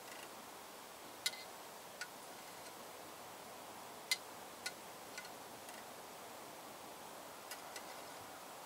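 A metal spoon clinking against the inside of an open tin can as the soup in it is stirred: a handful of light, irregular clicks over a faint steady hiss.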